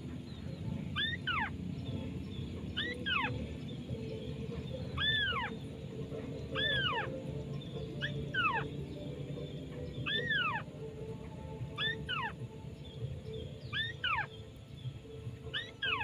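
A crake's call repeated at a steady pace, about every second and a half to two seconds. Each call is a short note that rises briefly and then sweeps steeply down.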